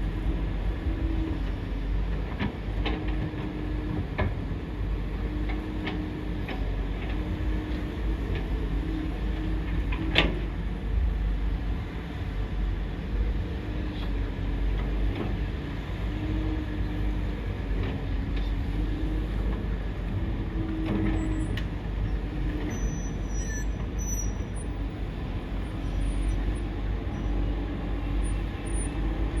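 A hydraulic excavator working: its engine runs steadily under a low rumble while a pump tone rises and falls as the hydraulics take load, with scattered knocks and clicks, the sharpest about ten seconds in.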